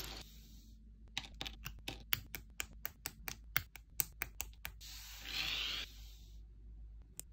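Rapid run of small hard plastic clicks, about five a second, as the parts of a snap-fit plastic Transformers figure kit are handled and clicked together. A brief rustle follows about five seconds in, then a few more clicks near the end.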